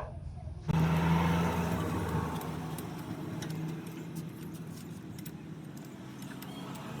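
Hero Glamour motorcycle's single-cylinder engine running: it comes in suddenly under a second in, loudest at first, then settles to a steady idle.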